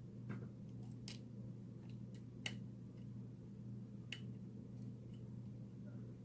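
Faint, irregular metallic clicks of a lock pick and tension tool working inside a small CISA 30mm four-pin padlock, about half a dozen ticks spread unevenly over a low steady hum.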